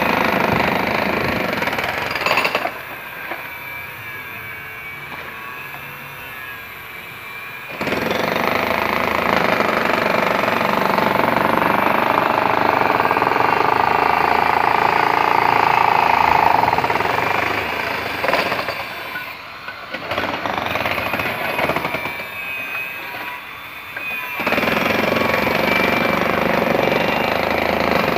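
Handheld demolition hammer (jackhammer) breaking up old concrete and brick foundation masonry. It runs in spells: on for the first couple of seconds, off for about five seconds, on for about ten seconds, cut briefly twice, then running again near the end.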